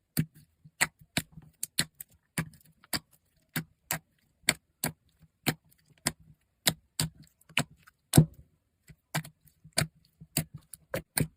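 Fingers poking and pressing into slime, making a run of sharp clicking pops about two or three a second, with one louder pop about eight seconds in.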